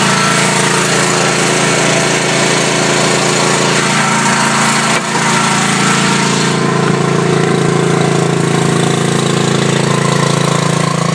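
RIDGID 8000 portable generator's engine running steadily on propane. The treble drops away from about six seconds in, so it sounds more muffled.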